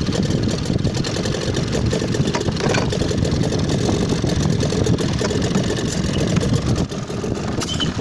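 1960s British Seagull two-stroke outboard motor running under way, a fast, uneven popping exhaust beat; the owner judges that it didn't sound great.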